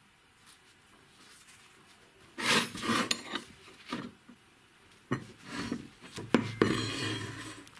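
Steel bar and steel rods being handled on a plywood workbench. After a quiet start, a run of metal-on-wood knocks and clinks begins about two and a half seconds in. Near the end comes a stretch of scraping as a piece is slid across the bench.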